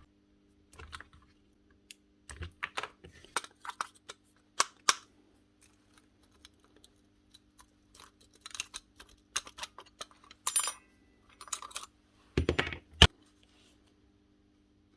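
Irregular clicks, taps and metallic clinks of tools and small metal parts being handled during the strip-down of a nail gun, with a sharp knock about thirteen seconds in, over a faint steady hum.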